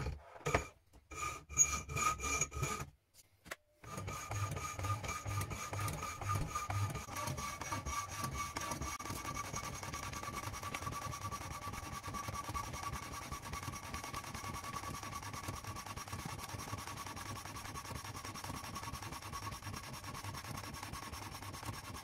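Homemade workshop machine driven by an old washing-machine motor, running and working material with a steady rough rasping. It starts about four seconds in after a brief silence, and a steady whine under it sinks slowly in pitch.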